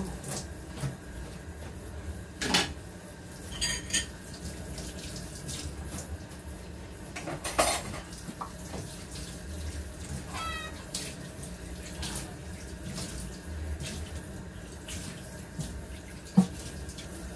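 Dishwashing at a stainless-steel sink with the tap running: scattered clinks and knocks of plastic dishware, with a louder clatter about seven and a half seconds in and a single sharp knock near the end. A brief squeak comes about ten seconds in.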